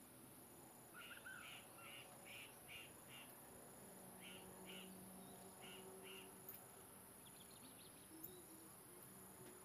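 Faint animal calls: short, sharp notes repeated about three a second, in two runs, over near-silent ambience with a faint steady low hum starting about four seconds in.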